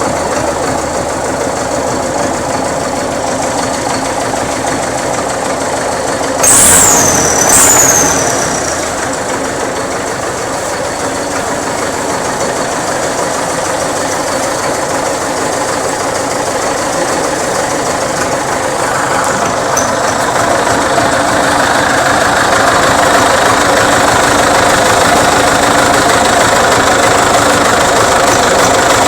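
MTZ-82 tractor's four-cylinder diesel engine running with a newly fitted turbocharger. About six seconds in come two short loud bursts, each with a high whistle that falls in pitch. From about two-thirds of the way through, the engine runs louder and higher.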